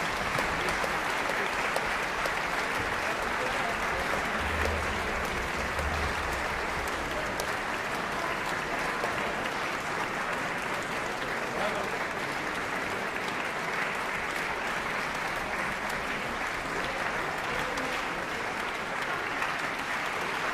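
Concert hall audience applauding steadily, many hands clapping at once.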